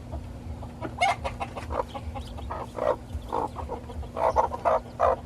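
Broody hens clucking in short, irregular calls.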